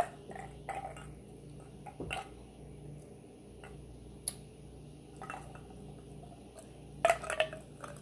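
Close-miked drinking and glassware handling: a sharp click at the start, scattered small clicks and wet sips, then a burst of clinks and liquid sounds about seven seconds in as a glass mug is handled and tilted.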